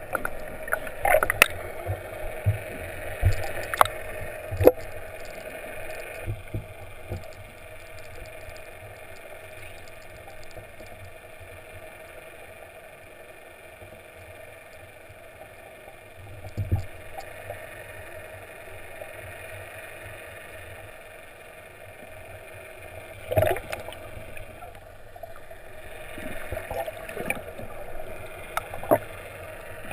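Muffled underwater sound picked up by a submerged camera: a steady hum with water noise, broken now and then by sharp knocks and bumps.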